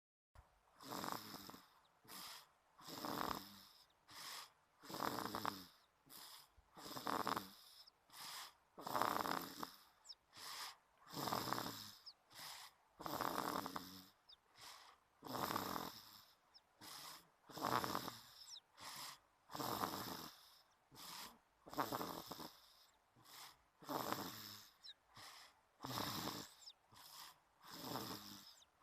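Snoring in sleep: a steady rhythm of rasping snores, about one every two seconds, with a softer breath between each.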